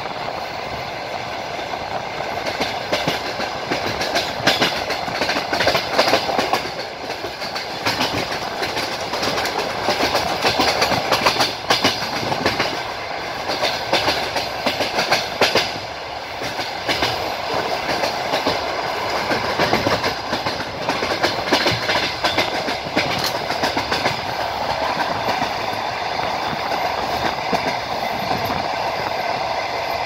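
Passenger train wheels clattering rhythmically over rail joints, heard from inside the carriage over the steady rumble of the running train. The clicks come thickest through the middle and thin out near the end.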